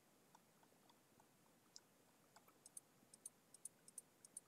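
Faint clicks of a computer keyboard and mouse picked up by a Logitech G633 headset's boom microphone: a few scattered clicks, then a quick, fairly even run of clicks from a little past halfway.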